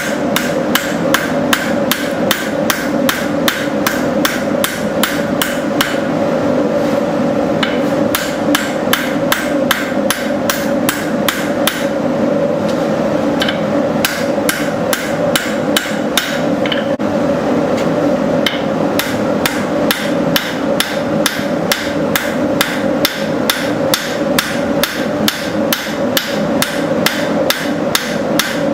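Blacksmith's hammer striking knife stock on an anvil in a steady rhythm of about three blows a second while the steel is drawn out. A steady hum runs underneath.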